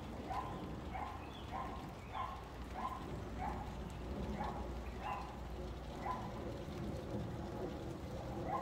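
A dog barking over and over at an even pace, about one or two barks a second, over a soft patter of rain.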